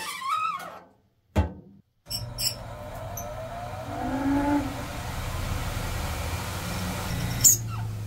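Spin dryer of a late-1960s Hoover washing machine starting up and spinning: a steady motor hum and rush, with a rising whine about four seconds in as it gathers speed. A short squeak and a knock come before it starts, and a sharp click near the end.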